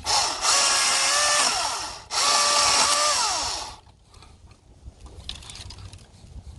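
Milwaukee M18 FUEL 16-inch battery chainsaw running in two short bursts of about two seconds each, its electric motor whine falling in pitch as each burst ends.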